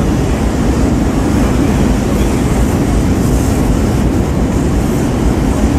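Diesel locomotive engine running as the locomotive rolls slowly forward: a steady low rumble with a hiss over it.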